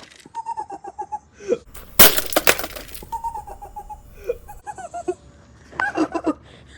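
A brick dropped onto a coffee maker lands with one loud crash about two seconds in, followed by about a second of breaking and clattering as the machine's plastic cracks.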